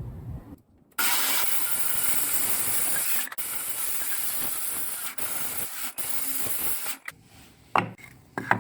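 Hiss of a spray in four bursts, cut by brief pauses, stopping about seven seconds in; two short sharp knocks follow near the end.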